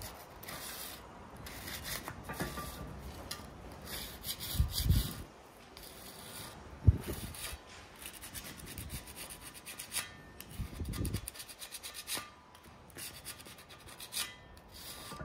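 A hand-held abrasive rubbed back and forth over the rusty steel blade of an old hand-operated metal shear, a dry scraping in short repeated strokes. A few dull low thumps come through as the pieces are handled, the sharpest about seven seconds in.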